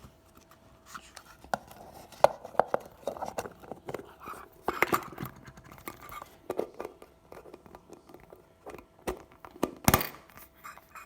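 Foil booster packs and a plastic toy Poké Ball being handled: light crinkling and rustling with scattered clicks and taps, and a louder knock about ten seconds in.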